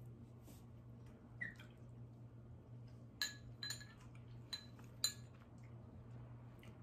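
A metal fork clinking and scraping against a ceramic bowl, a few light clinks spread through the middle, over a faint steady low hum.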